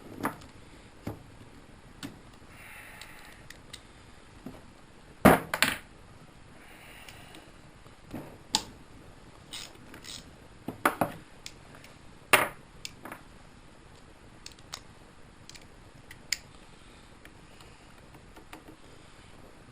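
Hand tools clinking and knocking against metal engine parts during an engine teardown: scattered short metallic clicks and knocks, the loudest a quick double knock about five seconds in and another near twelve seconds.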